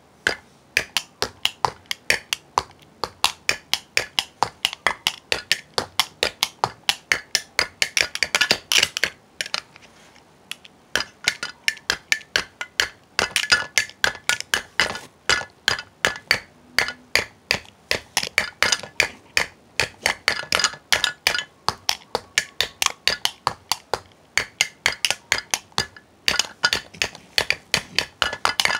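Fast, steady drumming: sharp strikes about four to five a second, some with a faint ringing tone, with a short pause about ten seconds in.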